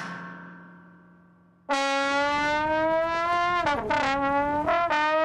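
A ringing note fades away, then about a second and a half in a homemade trombone is blown in one loud, long, silly note that slides down and back up in pitch before it stops.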